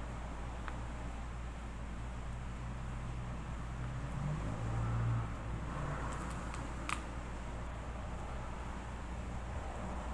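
Steady low background hum with a few faint light clicks, one sharper about seven seconds in, as tiny phone screws and small tools are handled and set down.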